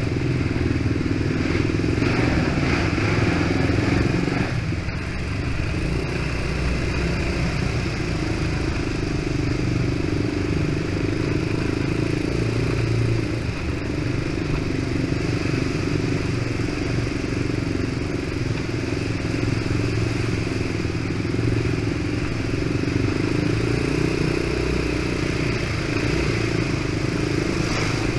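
Quad (ATV) engine running steadily at low speed while the quad is ridden. The engine eases off briefly about five seconds in, then carries on.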